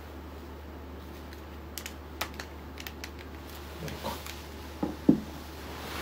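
Handheld camera being handled: a scatter of light clicks in the first half, then a few soft knocks, the loudest about five seconds in, over a steady low hum.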